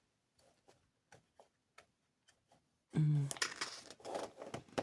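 Faint light clicks and taps of paper and small parts being handled, the instruction booklet being leafed back. About three seconds in, a woman's voice makes a brief sound, and the handling noise continues.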